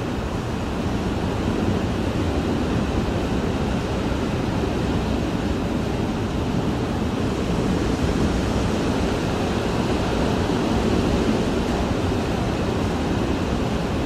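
Hurricane Irma's wind heard from inside a house: a steady, dense rush, heaviest in the low range, swelling slightly in the second half.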